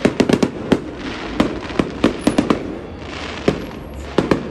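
Fireworks display: aerial shells bursting in a rapid, uneven run of sharp bangs, with crackle and hiss from the bursts between them.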